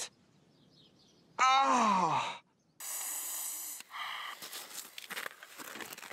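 A cartoon man's loud pained groan, falling in pitch, followed by a long hiss of breath through clenched teeth. Then faint clicks and rustling.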